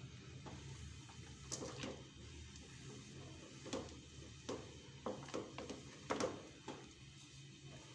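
Wooden spatula stirring and mashing thick, crumbly moong dal halwa in a wok: faint, irregular scrapes and taps against the pan, about a dozen strokes, over a low steady hum.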